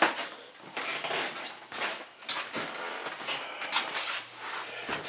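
Scattered light knocks, clicks and rustling at an irregular pace: handling noise from moving around a workshop with a hand-held camera.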